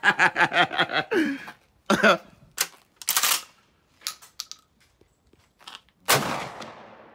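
A woman laughing, then clicks and a short rattle as a Kel-Tec KSG 12-gauge bullpup pump shotgun is racked, and about six seconds in a single loud shotgun blast whose echo trails off slowly.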